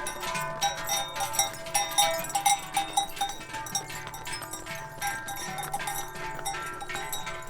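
Many large Swiss cowbells clanging together continuously and irregularly, their ringing tones overlapping.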